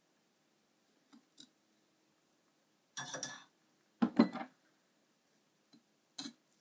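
Kitchen utensils clattering in a stainless steel sink as they are handled: two light knocks, then a cluster of clinks and knocks about three seconds in and a louder one about four seconds in, with a last knock near the end.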